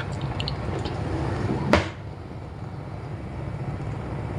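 Coconut-milk banana kolak simmering in a clay pot on the stove over a steady low hum, with a few light clicks in the first second and one sharp knock a little under two seconds in.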